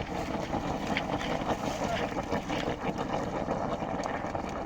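Steady rushing noise with many small crackles, from rail welding work on a railway track.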